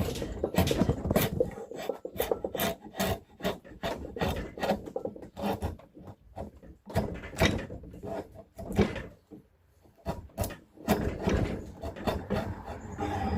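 A hand tool scraping over beech wood in quick repeated strokes, about two to three a second, like a rasp or file shaping the staff. There is a short pause about nine seconds in before the strokes resume.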